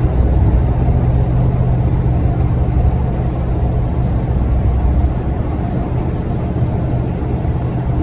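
Steady low drone of road and engine noise inside a moving car at highway speed, easing slightly after about five seconds.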